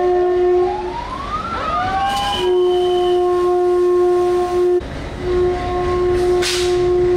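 Train horn held in long, steady blasts, broken off about a second in and again about five seconds in. A second tone rises and then falls about one to two seconds in.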